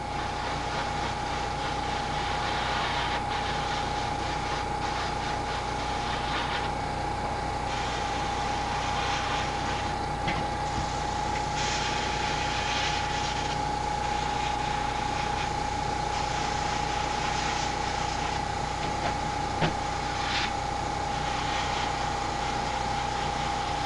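Small airbrush compressor running with a steady hum, under the hiss of an airbrush spraying paint, the hiss swelling in a few short spells.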